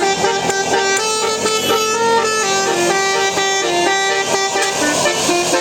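Bus telolet basuri horn playing a tune: a run of held notes stepping up and down in pitch, without a break.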